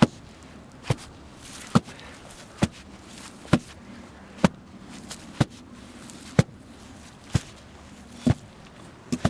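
Sledgehammer thudding down on loose dirt around the base of a wooden post, about one blow a second, compacting the soil so the post won't move.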